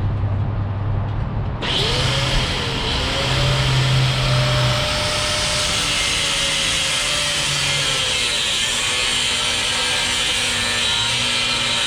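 A power tool switches on suddenly about one and a half seconds in and runs steadily with a harsh, hissing grind, a wavering tone in it fading out past the middle.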